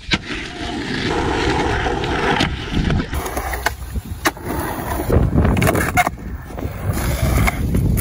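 Skateboard wheels rolling on concrete, broken several times by sharp clacks of the tail popping and the board landing.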